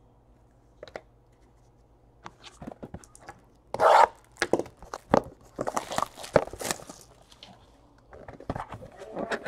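Hands handling and opening a cardboard trading-card box: irregular taps, scrapes and rustles, with the loudest knock about four seconds in and a longer rustle near the end.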